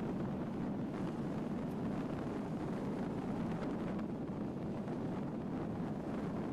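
A car driving along a gravel road: a steady rumble of tyres and engine, with scattered small ticks from the gravel.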